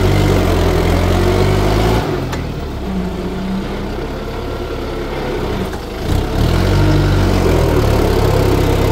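Kubota farm tractor's diesel engine running steadily; it eases off about two seconds in and picks up again about six seconds in, its note shifting as it does.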